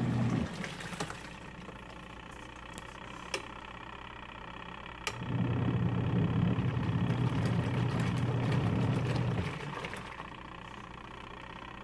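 Twin tub washing machine's wash motor agitating the load with its pulsator, in intervals: a low hum stops about half a second in, comes back for about four seconds in the middle, then stops again. There are a few light clicks during the pauses.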